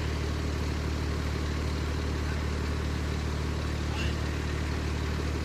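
Fire truck engine idling with a steady low hum.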